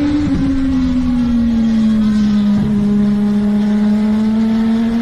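Legends race car engine running hard at high revs, its pitch dropping over the first couple of seconds as it eases off, then climbing steadily again as it accelerates.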